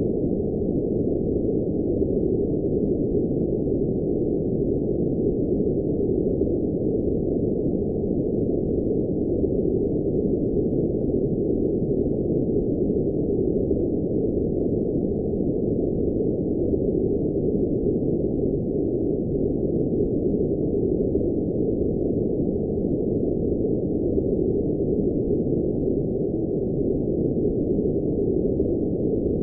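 Steady electronically generated noise: a constant, muffled rushing with no high hiss at all, without any change or interruption.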